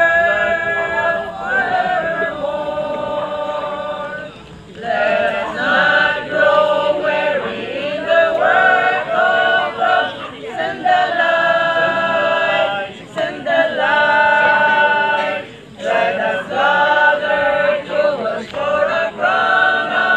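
A small mixed group of men and women singing together a cappella, sustaining notes in long phrases with brief pauses for breath between them.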